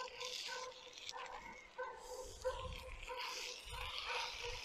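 Vine-leaf parcels sizzling on a hot charcoal grill: a steady hiss, with short squeaky tones coming and going throughout.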